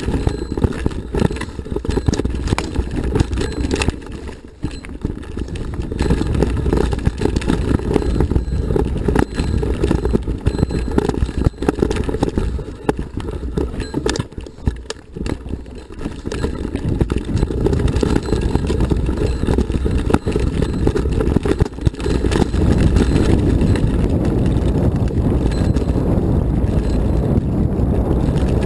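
Mountain bike rolling down a rocky dirt trail, heard through a handlebar-mounted camera: a dense, uneven rumble of tyre noise with constant knocks and rattles as the bike jolts over stones and roots. From about two-thirds of the way in, the sound turns into a steadier, louder rush as the tyres run onto a loose gravel road.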